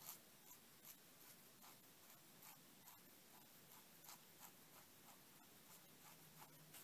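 Crow quill dip pen nib scratching faintly on paper in short hatching strokes, about two to three strokes a second.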